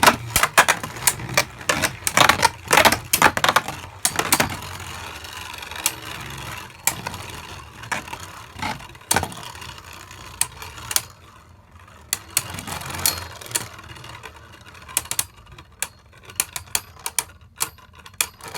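Two Beyblade Burst spinning tops battling in a plastic stadium: rapid clacking collisions, loudest and densest in the first few seconds. A softer steady whir of spinning with scattered clicks follows, then a fresh run of clicks near the end.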